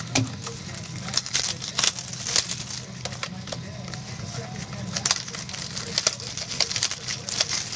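Card packaging being handled and opened by hand: irregular clicks, taps and crinkling rustles, over a steady low hum.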